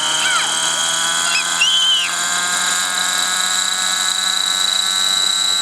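Aeolus 50 RC helicopter's glow engine and rotor running steadily with a high-pitched whine.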